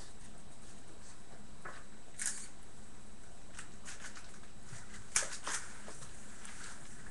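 A few light clicks and taps of a Bearded Collie puppy's paws moving about the floor, the sharpest about five seconds in, over a steady hiss.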